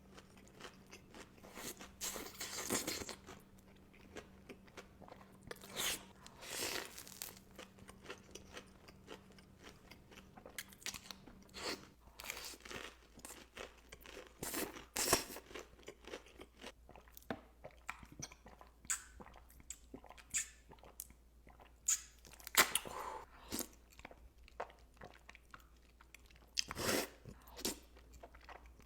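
Close-miked eating: crunchy bites and chewing, with irregular crunches scattered throughout.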